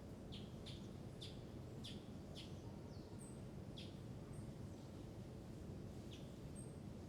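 A bird chirping faintly in short, repeated, falling notes at uneven intervals, over a steady low background hum.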